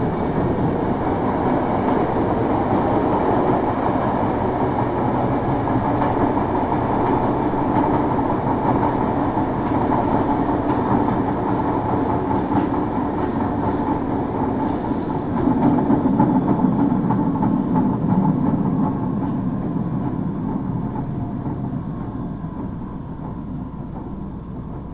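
Tokyo Metro 01 series subway car running, its wheel flats adding a rough, uneven noise over the rolling sound, with the DC traction motors' brushes only faintly heard. It slows down over the last few seconds, the running noise fading and a faint tone sinking slightly in pitch.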